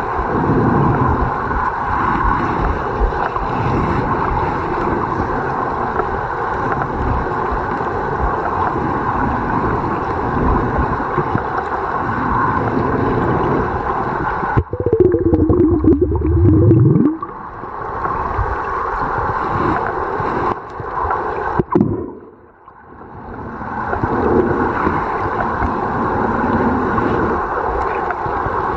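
Muffled underwater water noise picked up by a submerged waterproof compact camera: steady rushing and gurgling. About halfway through there is a brief wavering tone lasting a couple of seconds. The noise dips and quietens for a moment about three-quarters of the way through.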